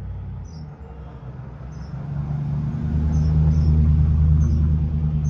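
Low, steady hum of a motor vehicle's engine that swells to much louder about two seconds in, with faint short chirps repeating above it.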